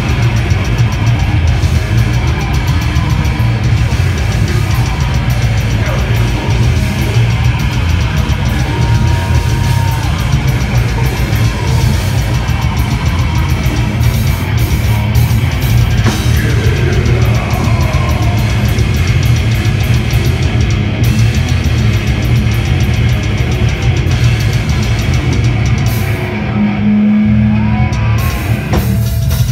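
Heavy metal band playing live and loud: distorted electric guitars over a drum kit. Near the end the cymbals drop out for a moment while a low held note rings, then the full band comes back in.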